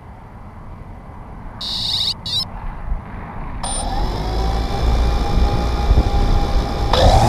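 3DR Solo quadcopter starting up for takeoff: a short burst of high beeps about two seconds in, then the motors spin up about halfway through to a steady whine that gets louder and rises in pitch near the end as they throttle up.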